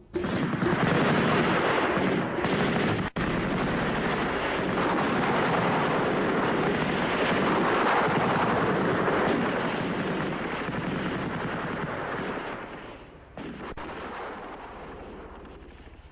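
Staged battle: a dense, continuous barrage of gunfire and explosions, with a momentary break about three seconds in, dropping away to a quieter rumble about thirteen seconds in.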